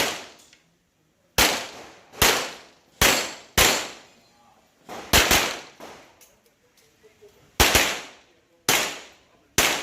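Handgun shots fired at an IPSC practical-shooting stage: about eight sharp reports, spaced irregularly from under a second to more than two seconds apart, each with a short ringing tail.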